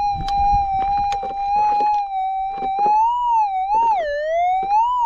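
Gold-prospecting metal detector's steady threshold tone, which about three seconds in starts to warble up and down in pitch in slow swells as the coil sweeps back and forth over a buried target. Light knocks and scuffs sound under it.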